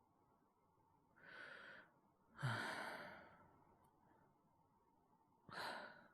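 A man breathing in, then letting out a long sigh about two and a half seconds in, and taking another breath near the end.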